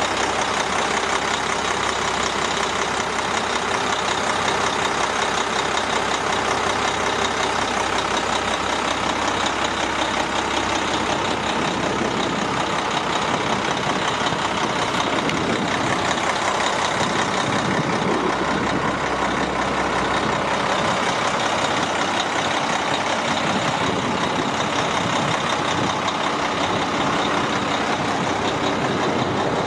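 Concrete mixer truck's Cummins ISM inline-six diesel running steadily, with its sound changing somewhat partway through.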